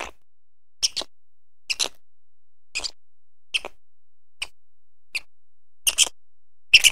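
Quokka biting and chewing a green leaf: sharp, crisp clicks at a steady pace of about one a second.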